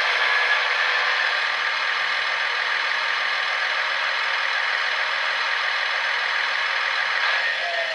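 Märklin model train running on the layout: a steady mechanical rattle and whir from the locomotive and wheels on the track, dropping in level about seven seconds in.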